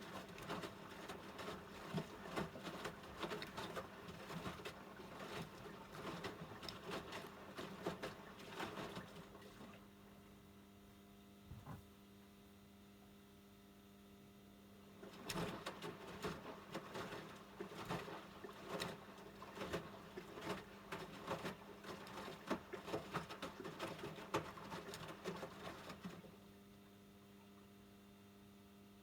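AEG LS60840L front-loading washing machine in its wash phase: the drum tumbles the wet laundry with sloshing and small knocks for about ten seconds, pauses for about five, then turns again for about eleven seconds and stops near the end. A steady low hum continues through the pauses.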